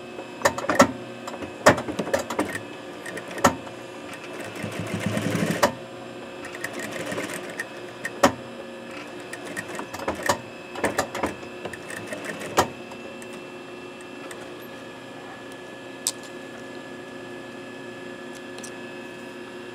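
Juki sewing machine stitching in short runs, tacking extra stitches to reinforce a mask's elastic; the longest run comes about four to six seconds in, with scattered clicks and knocks between runs. The last several seconds hold only a steady hum with a single click.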